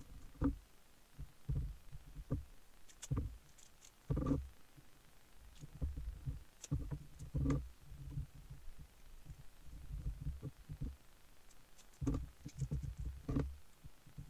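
Hands pressing resin-infusion mesh and high-temperature tape down onto a mould on a workbench: irregular soft thuds with a few sharper clicks.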